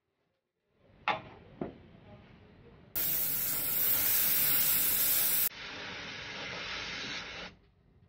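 R410A refrigerant hissing out of a loosened charging-hose fitting on a refrigerant recovery machine as the hose is purged of air. Two sharp clicks about a second in, then a loud hiss for about two and a half seconds that drops to a softer hiss for about two seconds more and then stops.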